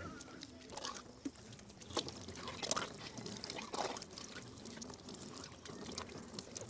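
Faint water pouring and dribbling in short, irregular spurts from a foot-pedal handwashing station's tap, with scattered small clicks and knocks.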